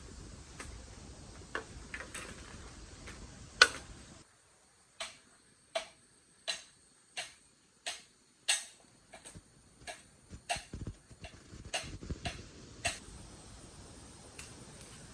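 A series of sharp clicks or snaps: about one every 0.7 s from about four seconds in, then quicker and uneven until near the end.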